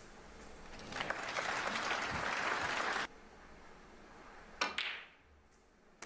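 Audience applause for about two seconds, cut off abruptly, followed a moment later by one sharp click of a snooker shot, with a brief ring.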